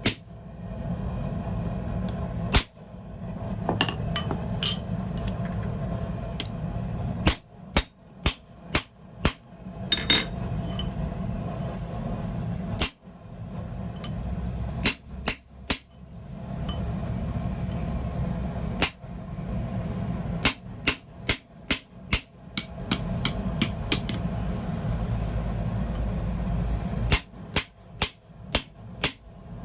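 A blacksmith's hammer strikes hot steel on the anvil in quick runs of about five or six blows, each with a short high ring. Between the runs a steady low forge rumble runs, broken off abruptly several times.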